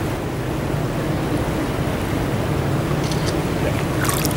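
Steady rush of a shallow stream's current, an even wash of water noise with a low rumble.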